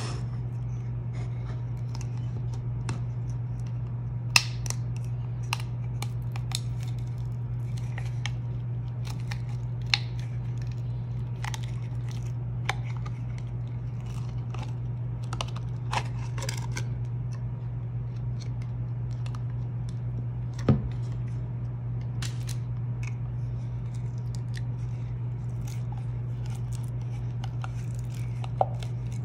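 Hands handling a clear plastic slime tub: scattered clicks, taps and scratches as the lid comes off and fingers and nails work the jar, with a few louder knocks, over a steady low hum.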